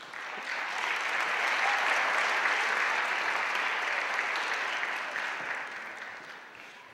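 Audience applauding, building up over the first second, holding steady, then dying away near the end.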